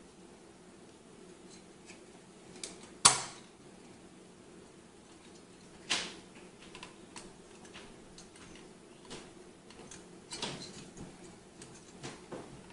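Clicks and knocks from handling a cooling fan and the Arctic Accelero S3 heatsink frame as the fan is fitted on. There is one sharp click about three seconds in, another about six seconds in, then a run of smaller clicks and taps near the end.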